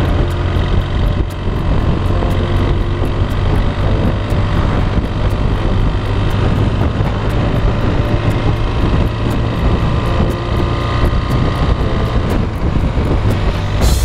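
BMW F800 ST's parallel-twin engine running at a steady cruise, with wind rushing over the microphone.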